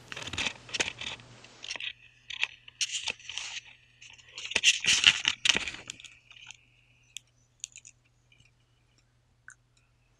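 Hand-held camera being handled close to its microphone: fingers rubbing and scraping on the body in irregular bursts for about six seconds, then a few scattered clicks.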